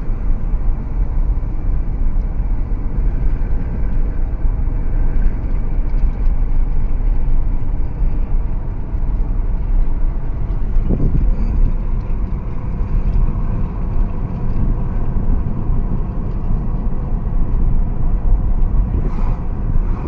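Steady low rumble inside a running Jaguar's cabin, with a brief rising sound about halfway through and a short click near the end.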